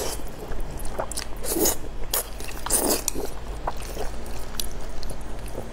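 A person slurping and chewing wide mianpi noodle sheets close to the microphone: two wet slurps about a second and a half and three seconds in, with small smacking clicks of the mouth in between.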